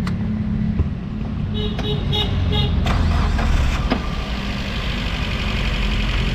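Suzuki APV engine running at idle, steady and even, with a few short electronic beeps about a second and a half in. It runs smoothly without shaking after the ignition coils were replaced, which cured its rough idle.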